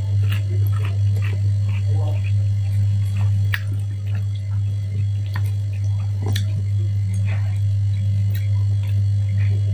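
Close-miked chewing and mouth clicks of a person eating fried tempe, rice and salted fish by hand, as irregular small clicks and ticks. Under them runs a loud, steady low hum.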